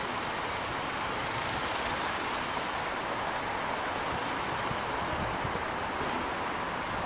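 Steady hiss of distant road traffic, with no crow calls heard.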